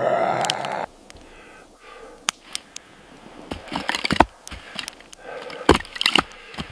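Irregular sharp cracks and knocks, with a cluster of them about four seconds in, after a short louder sound in the first second.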